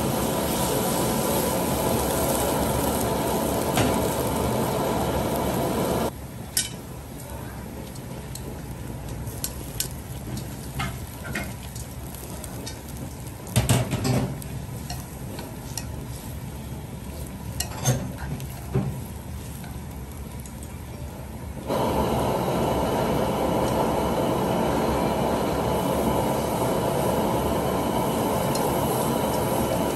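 Kitchen cooking noise from a wok of crab broth on a gas burner: a steady loud rushing noise that drops away about six seconds in and comes back abruptly at about 22 seconds. In the quieter middle stretch there are a few sharp clinks and knocks of utensils against the pan.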